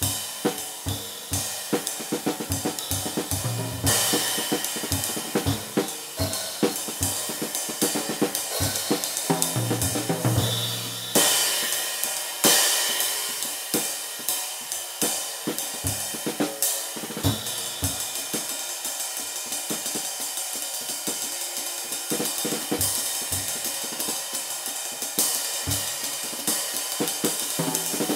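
Drum kit groove played on a riveted Alexino Old Stamp sKy ride cymbal: steady stick strokes over a sustained bright wash, with the rivets adding sizzle. Snare and bass drum hits run under it, with low tom passages about four and ten seconds in.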